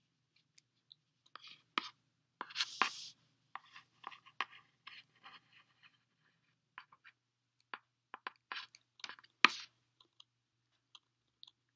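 Braided synthetic line being handled and worked into an eye splice: irregular scratchy rustles and small clicks of cord rubbing under the fingers, with a louder cluster about three seconds in and a sharp click about nine and a half seconds in.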